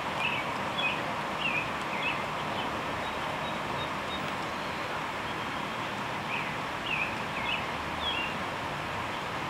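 Steady outdoor background noise, with small groups of short high chirps near the start and again about six seconds in.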